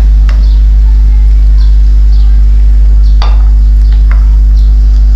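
Steady, loud low electrical hum, under a wooden spatula stirring and scraping shredded cabbage in a non-stick wok. A few scrapes stand out: about a third of a second in, a little after three seconds, and at the very end.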